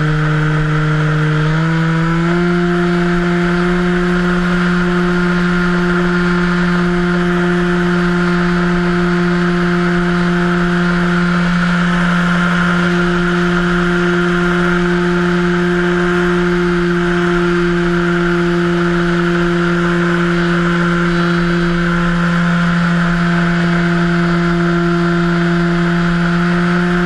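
Electric motor and propeller of an RC Cessna 182 floatplane model droning steadily in flight, recorded on board. About two seconds in the pitch steps up slightly as the throttle is opened a little, then holds, over a steady rush of air past the camera.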